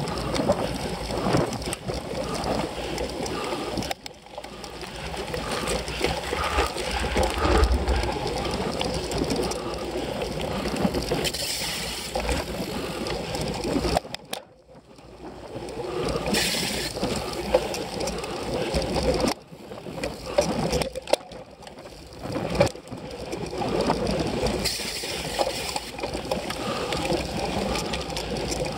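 Cyclocross bike ridden hard over bumpy grass and dirt, heard through a camera mounted on the bike: a constant rattle and rumble of tyres, chain and frame. The sound drops out briefly a few times along the way.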